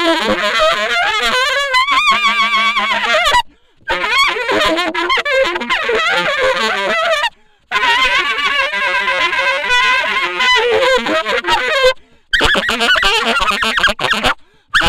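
Honking, squawking wind-instrument tones with wavering pitch, played in four stretches, each cut off suddenly by a brief silence. One held, steadier tone sounds about two seconds in.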